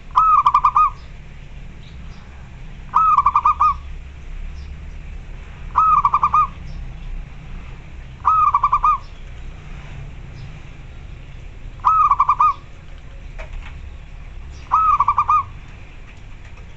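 Zebra dove (local perkutut) cooing its call: six short phrases of rapid rolling notes, one about every three seconds.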